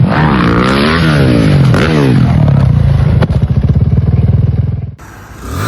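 An engine revving up and down twice, then running hard with a fast, even pulse before stopping abruptly about five seconds in.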